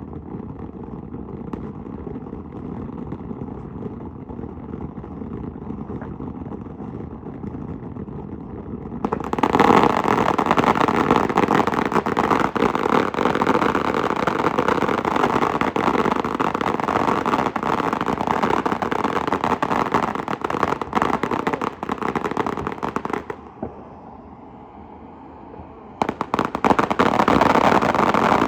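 Fireworks crackling in a dense rapid rattle of small pops, starting about nine seconds in and lasting about fourteen seconds, then stopping; a fresh burst of crackling starts near the end. Before the crackling, only a low steady rumble.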